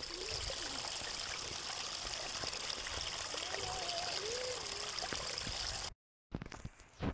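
A small rocky stream of water trickling and splashing over stones, steady, until it cuts off sharply about six seconds in.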